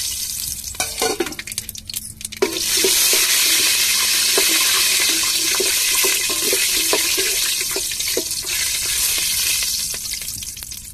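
Whole spices (bay leaf, star anise, kalpasi, cardamom, cloves) sizzling in hot oil in an aluminium pot as they are tempered for biryani, with a metal ladle scraping and clicking against the pot as they are stirred. The sizzle dips briefly about a second in, swells loudly about two and a half seconds in, and eases near the end.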